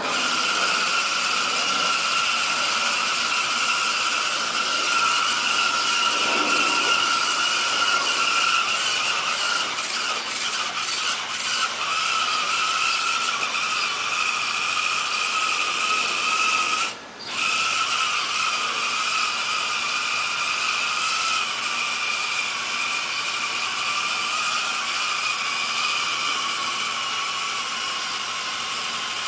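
Radio-controlled truck's motor and drivetrain whining steadily at full throttle while the truck is held in place, its wheels spinning in mud to pack the tyres. The whine cuts out briefly about seventeen seconds in, then picks up again.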